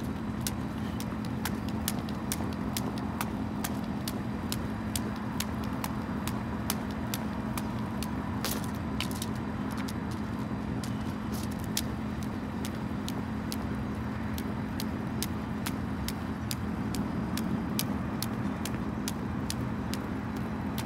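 Car engine idling steadily, a low even hum, with sharp light taps about once or twice a second on top.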